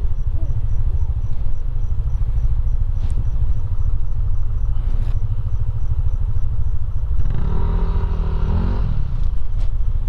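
Motor scooters idling with a steady low rumble. About seven seconds in, a pitched sound rises and falls for about a second and a half over it.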